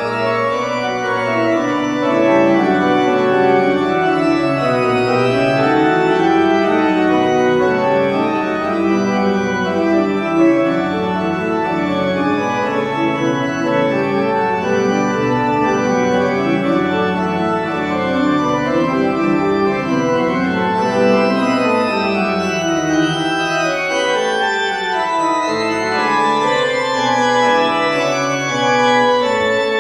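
Background music of sustained organ chords that change slowly.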